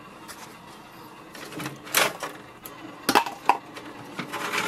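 Plastic clicks and clatter from a printer's pulled-out paper tray as its paper-width guides are slid and set. There is one sharp knock about two seconds in, then a few more from about three seconds on and near the end.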